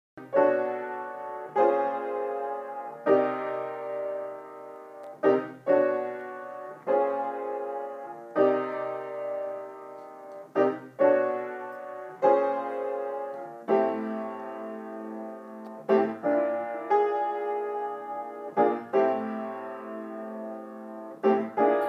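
Background piano music: chords struck every second or two, each fading away before the next.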